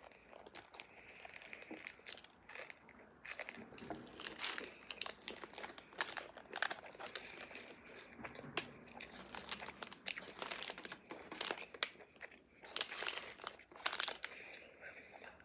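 A food wrapper crinkling, with crunchy bites, as a banh mi is handled and eaten; a run of irregular, fairly quiet crackles.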